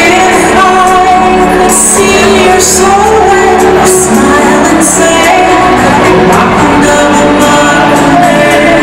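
Loud pop music with singing, with a few sharp cymbal-like hits over the steady beat.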